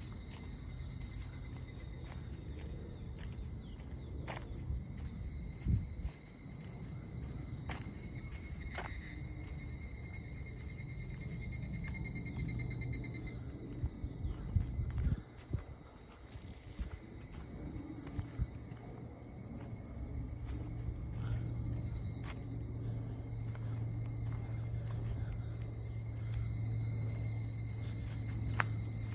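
A dense chorus of insects shrilling steadily on one high, unbroken note, with a fainter trilling tone for a few seconds near the middle. Occasional soft clicks and a low rumble sit underneath.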